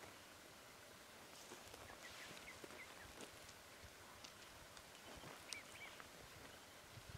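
Near silence: faint outdoor quiet with a scattering of short, high bird chirps and a few faint clicks.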